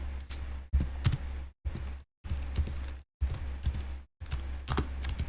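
Computer keyboard and mouse clicks over a steady low hum, with the sound cutting out abruptly to dead silence about four times as a noise gate on the microphone closes and reopens.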